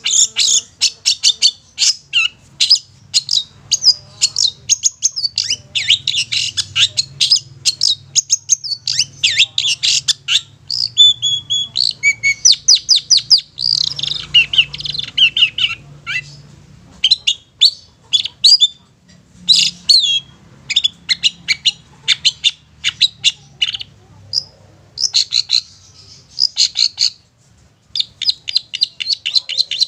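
Long-tailed shrike (cendet) singing: rapid runs of short, sharp, high chattering notes, broken by a few brief pauses.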